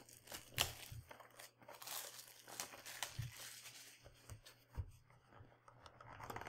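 Packaging of a trading-card hobby box being torn open, with plastic wrap crinkling and scattered sharp clicks and snaps.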